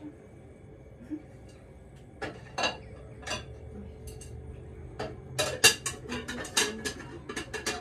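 Dishes and containers knocking and clinking as they are put away into a refrigerator: a few scattered knocks at first, then a quick run of clatters in the last three seconds.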